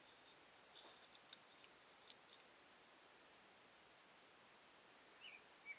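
Near silence, with a few faint light clicks of small carburetor screws and parts being handled, about a second and two seconds in.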